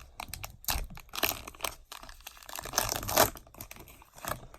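Foil wrapper of a trading-card pack crinkling and tearing as it is opened, in irregular bursts of crackle.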